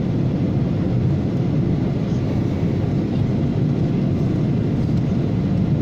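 Steady low rumble of a passenger airliner's engines and rushing air heard inside the cabin while the plane descends through cloud.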